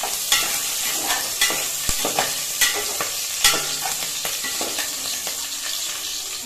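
Green chillies and bay leaves sizzling in hot oil in a stainless steel pot, stirred with a perforated spoon that knocks and scrapes against the pot about five times in the first half, then the sizzle goes on alone.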